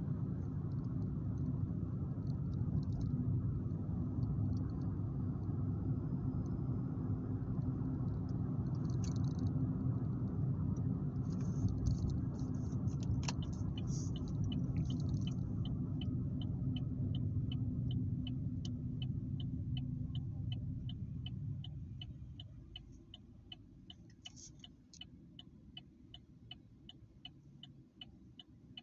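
Car cabin road and engine rumble while driving, fading away about three-quarters through as the car slows to a stop. From about halfway, a turn-signal indicator ticks steadily and evenly.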